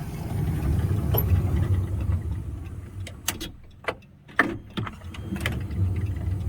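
Chrysler Town & Country minivan with a steady low running sound, broken by a handful of sharp clicks and clunks in the middle from the sliding door's mechanism as the door is operated.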